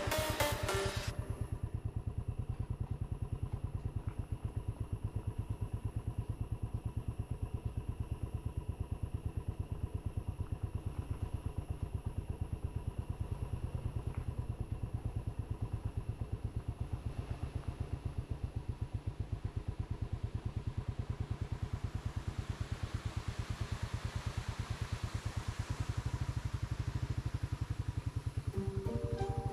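Motorcycle engine running steadily at low speed with a fast, even throb while riding. A rushing hiss builds in the second half.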